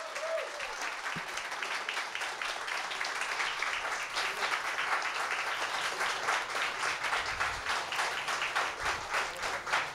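A small audience of standing guests applauding, many hands clapping at once, swelling over the first couple of seconds and then carrying on steadily.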